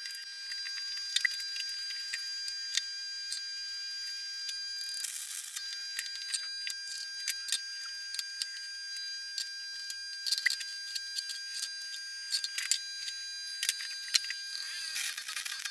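Stick welding on steel flat bar, the arc crackling in short bursts about three times (tack welds), with sharp metal clicks and clinks in between. A steady high-pitched whine runs underneath.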